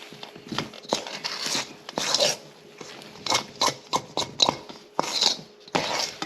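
Cookie dough being stirred and scraped in a mixing bowl to work in the last of the flour. It makes a run of irregular crunchy scrapes and knocks, some short and some drawn out.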